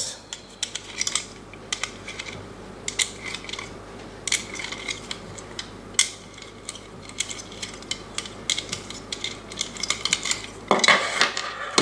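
Hard black plastic case being unlatched and handled: scattered light clicks and rattles of plastic parts, with a busier clatter near the end.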